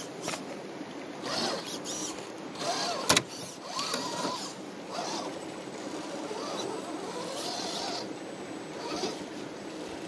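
Redcat Gen8 RC rock crawler's electric motor and gearbox whining in short spurts that rise and fall in pitch with the throttle as it crawls over rocks. There is a single sharp knock about three seconds in.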